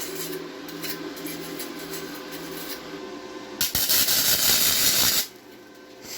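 Wire brush scrubbing the broken cast-iron exhaust manifold, cleaning the crack for welding. About three and a half seconds in, a loud hiss takes over for about a second and a half, then stops suddenly.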